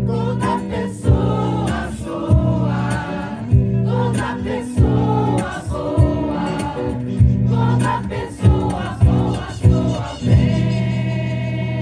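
Choir singing over acoustic guitar and percussion, with a steady beat about every second and a quarter. The voices stop about ten seconds in, leaving held instrument tones.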